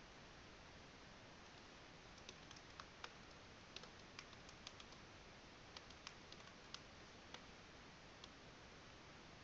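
Faint computer keyboard typing: a run of irregular keystroke clicks starting about two seconds in and stopping about a second before the end.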